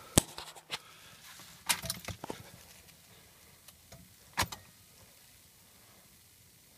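A few sharp clicks and knocks from handling inside a car's cabin, the loudest about four and a half seconds in. The ignition is on and the engine is neither cranking nor running.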